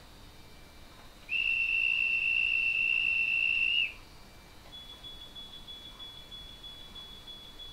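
A departure whistle played by the ESU LokSound V5 sound decoder in a Roco H0 model of the DB ETA 515 battery railcar, heard through the model's small loudspeaker. It is one long, steady, high whistle of about two and a half seconds, starting about a second in.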